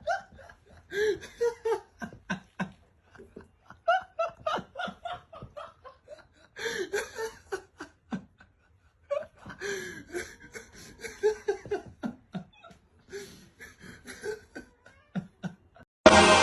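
People laughing in repeated bursts of chuckles and giggles, with short breaks between the fits.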